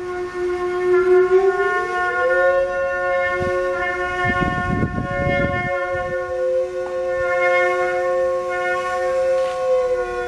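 A Microtone-Duplex trumpet holds one long steady note while a bowed musical saw slides up from the same pitch to a higher note and sustains it with a slight waver, the two forming a drone. A brief low rough noise sounds underneath about four to six seconds in.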